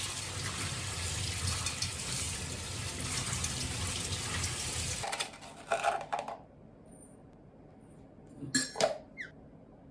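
Water running from a kitchen tap into a sink as a steady rush, cut off about five seconds in. A short clatter and a few clinks of dishes follow near the end.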